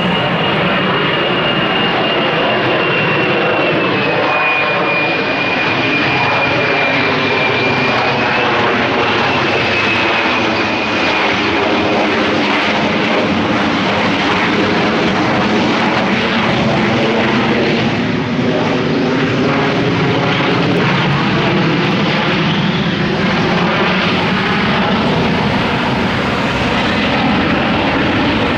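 Harrier jump jet's Rolls-Royce Pegasus turbofan: a tremendous, steady jet roar overhead. A high-pitched whine over it dips slightly in pitch about four seconds in and fades out after about eleven seconds.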